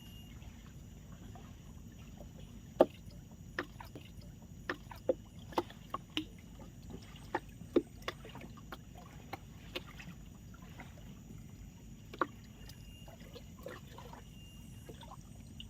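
Scattered sharp clicks and knocks, about a dozen at irregular intervals, the loudest a little under three seconds in, over a steady low background rumble.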